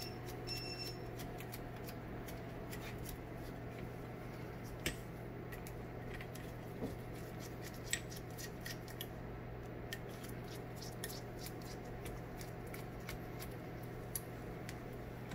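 Small precision screwdrivers clicking and tapping against a microscope observer tube as its locking ring is worked loose, in scattered irregular ticks with a few louder taps, over a steady low hum.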